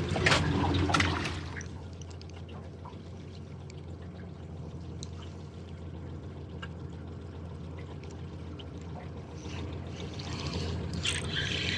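Quiet water trickling and splashing over a steady low hum. Near the end, a fishing reel starts clicking as it is wound.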